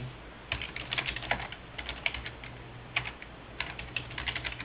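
Typing on a computer keyboard: irregular quick keystrokes, starting about half a second in, over a steady low hum.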